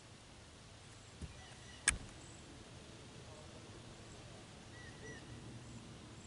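Faint outdoor ambience with a few faint, short bird chirps. A sharp click comes about two seconds in, just after a softer knock.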